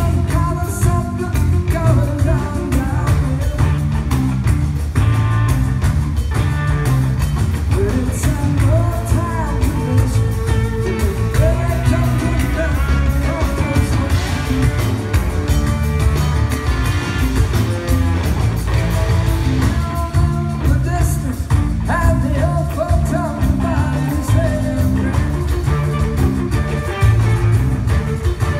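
A live rock band: Stratocaster-style electric guitar over a drum kit, with a man singing, heard in the hall from among the audience.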